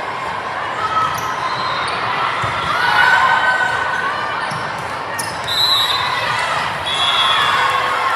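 Volleyball players' sneakers squeaking on a gym court amid the echo of a large hall, with a ball bounce or two and background chatter.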